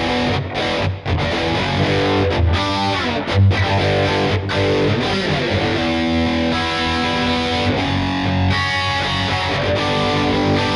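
Schecter C1 Elite electric guitar played through distortion. Fast picked riffs are broken by a few short, sharp stops in the first few seconds, then give way to longer held notes.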